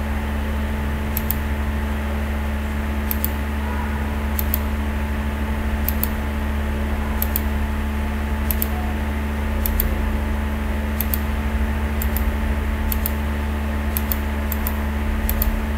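Steady hum and whirr of a computer's cooling fan, with about a dozen short, sharp mouse clicks spaced irregularly one to two seconds apart.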